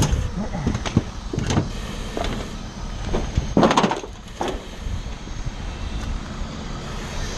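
Boots crunching and knocking over scattered burnt debris, boards and sheet metal, in irregular steps, the loudest crunch about three and a half seconds in, over a steady low rumble.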